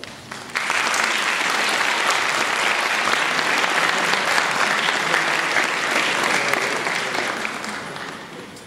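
Audience applauding. It breaks out suddenly about half a second in, holds steady, then dies away near the end.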